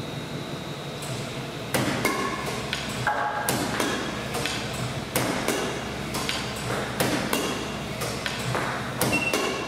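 A badminton racket being worked hard in a head-speed test: a rapid, uneven series of sharp strikes, about two to three a second, many with a short high ping, starting a couple of seconds in.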